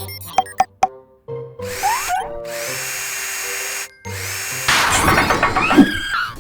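Cartoon sound effect of a power drill whirring, in two stretches of a second or two each, with light clicks at the start, over children's background music.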